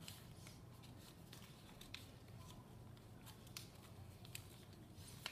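A sheet of paper being folded and creased by hand: faint scattered rustles and small crackles over a steady low hum.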